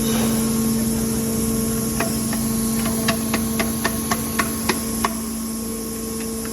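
Steady hum of factory machinery with a constant tone. From about two seconds in, a run of about ten sharp clicks comes roughly three a second and stops about five seconds in.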